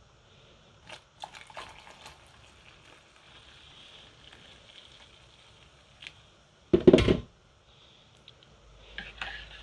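Hot water poured from a stainless-steel electric kettle into a mug, a faint steady trickle for a few seconds, then a loud knock about seven seconds in as the kettle is put back down. There are light clicks of handling before the pour and clinks near the end.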